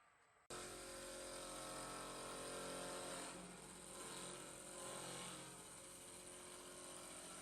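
Woodworking machinery running with a steady hum of several held tones and a high hiss, cutting in suddenly about half a second in.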